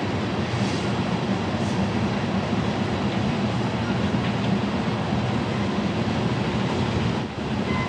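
Loaded ethanol tank cars of a freight train rolling past: a steady, loud noise of steel wheels running on rail.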